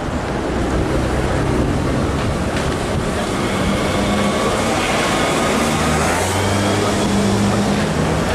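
A vehicle engine running over steady street noise, its low hum growing stronger about three seconds in.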